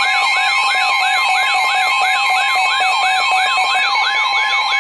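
Weather radio receiver sounding a warning alert: a siren-like tone that sweeps downward in pitch and repeats about three times a second over a steady tone, signalling an incoming severe weather warning.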